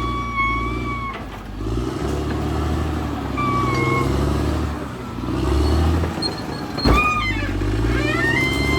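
Caterpillar D6R XL bulldozer working, its diesel engine pulling under a load that rises and eases every second or two. A high squeal comes and goes over the engine, and there is one sharp clank about seven seconds in.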